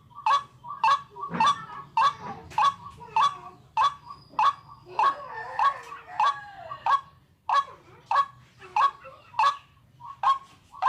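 Waterhen calling: a harsh, honking call repeated steadily, about one and a half to two calls a second. This is the bird call used as a lure for catching waterhens.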